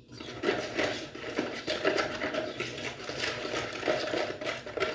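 Metal spoon stirring a yogurt and spice marinade in a plastic bowl, scraping and clicking against the bowl in quick, repeated strokes.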